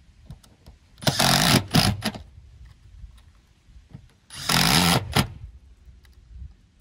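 Cordless impact driver, a green Metabo HPT, driving two screws through the metal band of a rubber vent pipe boot into a steel roof panel, each in a burst of about a second, the second about three seconds after the first.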